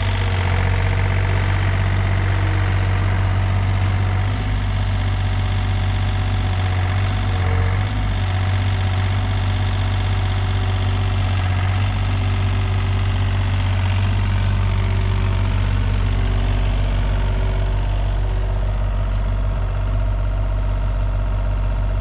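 Takeuchi TB235-2 mini excavator's diesel engine running steadily under hydraulic load while the machine uses its bucket to pull itself out of mud.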